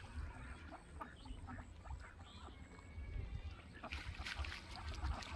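Water splashing and dripping as a wet cast net is hauled in by its rope through shallow pond water, in irregular short splashes, over a low rumble of wind on the microphone.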